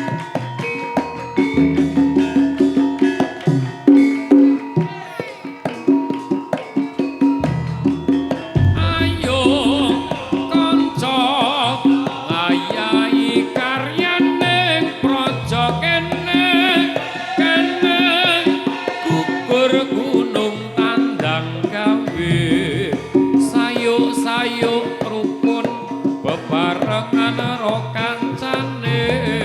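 Javanese gamelan music playing: drums and struck metal keyed instruments keep a dense, steady beat. A wavering high melody joins about nine seconds in.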